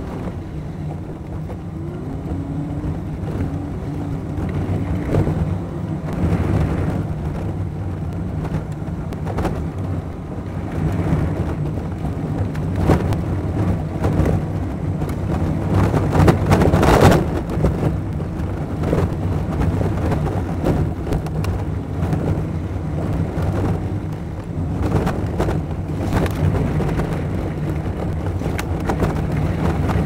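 Four-wheel-drive vehicle driving a rough gravel forest road, heard from inside the cabin and sped up to triple speed: a steady engine drone with frequent knocks and rattles from bumps, and one louder jolt a little past halfway.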